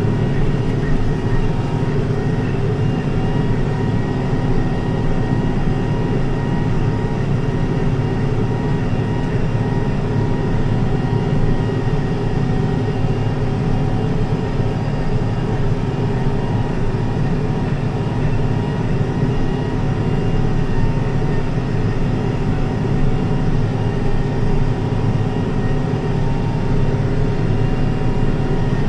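Farm tractor engine running steadily under load, pulling and driving a hay baler, a constant drone with several fixed tones.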